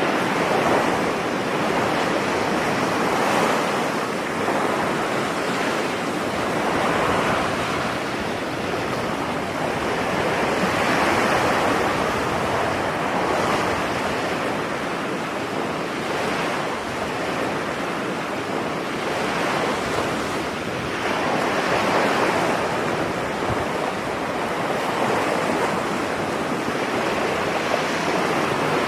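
Ocean surf on a beach: a continuous rush of breaking waves that swells and eases every few seconds.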